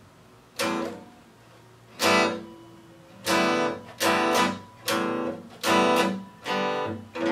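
Guitar strummed in chords: two separate strums, then a steady strumming rhythm of about one chord every 0.8 seconds from about halfway through.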